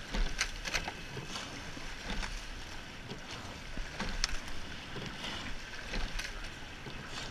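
Eight-oared racing shell under way at race pace: blades splashing into the water and oars knocking in their oarlocks with each stroke, heard as recurring short clicks over a steady rush of water.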